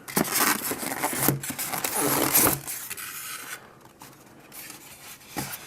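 Cardboard and packing material rustling and scraping as a microphone is unpacked from its box, busiest for the first two and a half seconds, then quieter handling.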